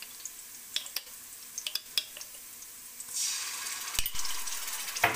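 Chopped onion crackling softly in oil in a wok, with light pops and ticks; about three seconds in, the sizzle jumps to a steady loud hiss as ginger-garlic paste goes into the hot oil, with a couple of knocks against the pan.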